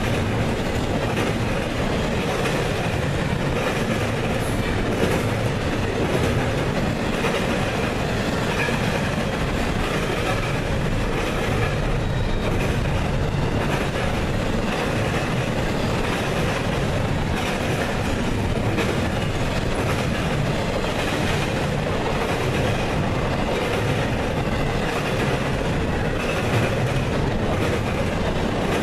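CSX double-stack intermodal freight train rolling past at speed: a steady rumble of steel wheels on the rails, with the clicks of wheels passing over rail joints.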